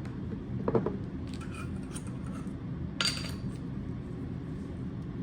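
Kitchen handling noises as spice containers and utensils are moved on the counter: a knock just under a second in and a short rattle about three seconds in, with a few light clicks between, over a steady low hum.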